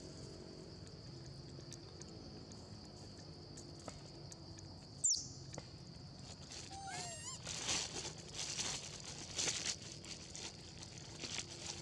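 Young long-tailed macaques foraging on gravel: a short high squeak about five seconds in, a brief pitched monkey call near seven seconds, then scuffing and rustling on the gravel and leaf litter. A steady high insect drone runs underneath.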